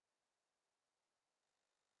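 Near silence: the call's audio has dropped out.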